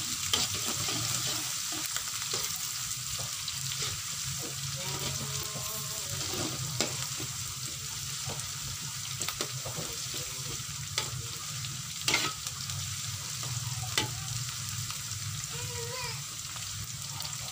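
Sliced green chilies and onions sizzling steadily in oil in a wok as they are sautéed until wilted, stirred with a spatula that scrapes and knocks against the pan now and then.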